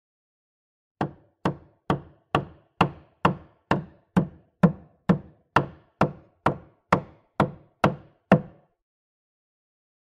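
A hammer hitting wood in a steady run of about seventeen sharp strikes, roughly two a second, starting about a second in and stopping before the end.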